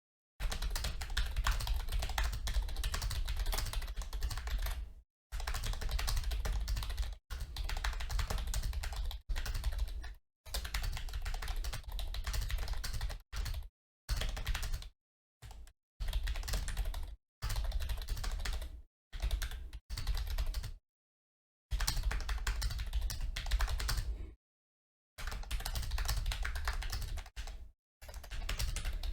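Fast typing on an A4Tech Bloody B188 keyboard: rapid runs of key clacks lasting a few seconds each, broken by brief pauses of complete silence.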